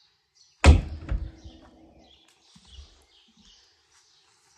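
A car door, the BMW 635i's, being shut with a single heavy thud and a short metallic ring, followed by a softer knock. Birds chirp faintly throughout.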